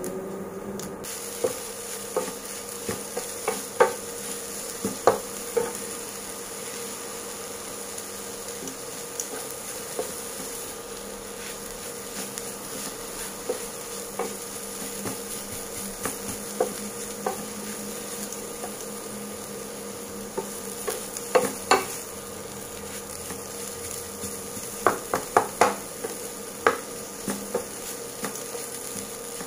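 Wooden spatula stirring and scraping dry-roasting lentils and dried red chillies, then mint leaves, in a nonstick pan, over a light steady sizzle. Sharp knocks of the spatula against the pan come in clusters: several in the first few seconds, a pair about two-thirds through, and a quick run near the end.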